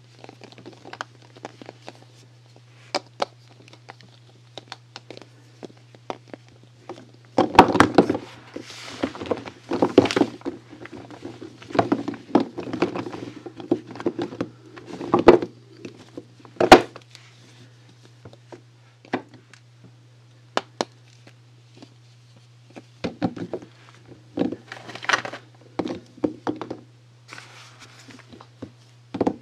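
Hands handling soaps and their packaging: scattered light taps and clicks, with two busier stretches of rustling and knocking, the first and loudest in the middle with a sharp knock near its end. A faint steady low hum lies underneath.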